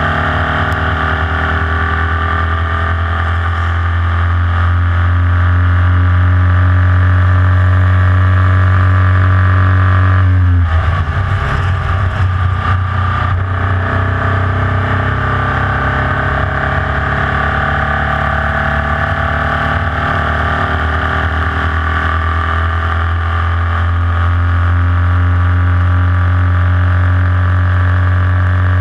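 Formula Vee race car's air-cooled Volkswagen flat-four engine at racing revs, heard from on board the car. Its pitch climbs slowly under full throttle, drops sharply about ten seconds in, then climbs slowly again.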